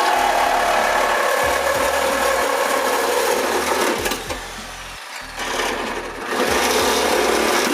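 Power tool running steadily while cutting away material inside a car body. It stops about four seconds in and starts again about two seconds later.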